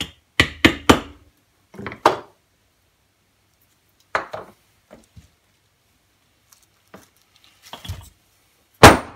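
Sharp metal knocks as the scroll of a three-jaw self-centering lathe chuck is tapped loose with a screwdriver used as a punch. There are three quick blows at the start, a couple more about two seconds in, then scattered lighter knocks and one loud blow near the end.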